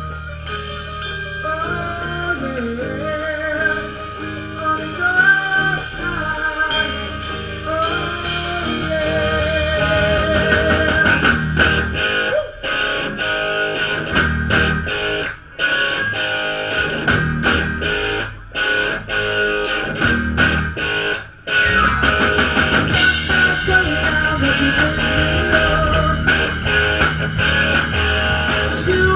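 Live rock band with electric guitar, electric bass, drum kit and keyboard playing an instrumental passage, a lead line bending over the rhythm section. In the middle the whole band cuts out briefly four times, about every three seconds. Near the end it plays on together, fuller and louder.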